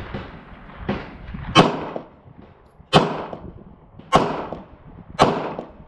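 Glock 19 9mm pistol fired four times in slow succession, about one shot every 1.2 seconds, each a sharp report with a short decaying tail.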